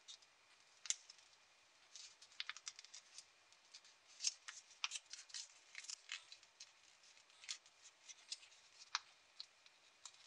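Small sheet of origami paper being folded and pinched by hand: faint, irregular crisp crackles and ticks as the creases are pressed.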